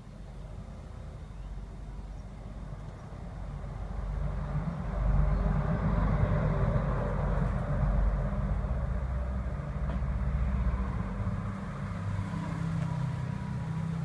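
A motor vehicle passing nearby: a low rumble with tyre noise that swells about four seconds in, holds for several seconds and then fades.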